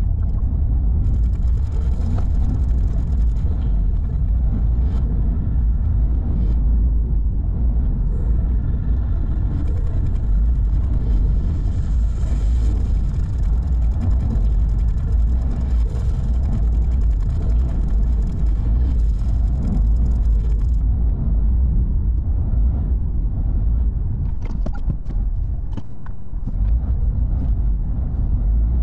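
Steady low rumble of a car driving along a rough, narrow road, heard from inside the cabin. A few sharp clicks and knocks come near the end.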